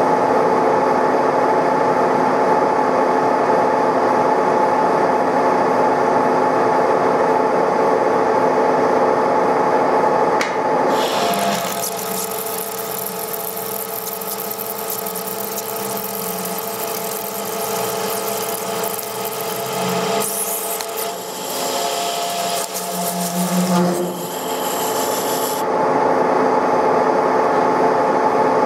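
TOS SN63B lathe running with a steady gear whine, then an insert tool biting into the turning metal wheel hub about a third of the way in: a hissing, scraping cut with chips for about fifteen seconds, over a quieter drive whine. Near the end the cut stops and the lathe runs on with its steady whine.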